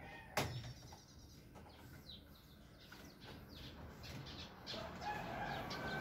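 A sharp click about half a second in as the washing machine's plastic top cover is pried up, then a string of short, high chirps from birds, each falling in pitch. A steady noise rises near the end.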